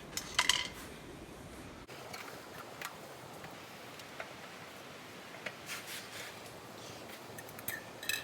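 Light clicks and knocks of tools and parts being handled during a garbage disposal installation. The loudest is a short cluster of clicks just after the start, followed by scattered faint taps.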